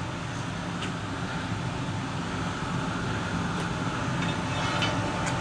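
Steady mechanical hum and rumble of plant-room machinery, with a few faint clicks.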